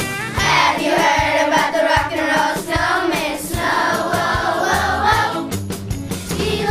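Children's choir singing a Christmas song over an instrumental accompaniment with a steady beat.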